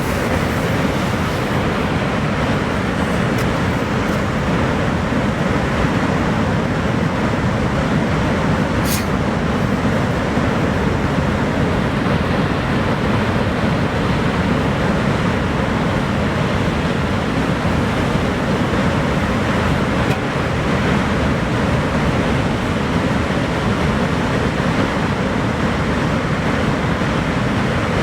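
Niagara Falls: water pouring over the falls in a steady, unbroken rushing noise.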